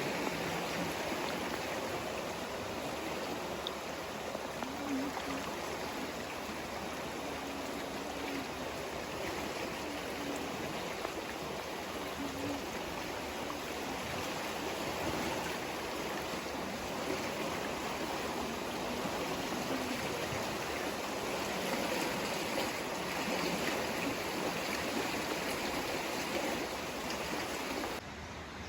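River water flowing over rocks in a steady rush, dropping suddenly quieter just before the end.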